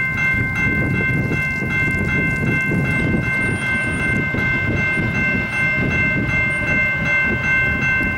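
General Signals Type-2 electronic crossing bell ringing in rapid, evenly spaced dings as the crossing gates come down, warning of an approaching train, over a steady low rumble.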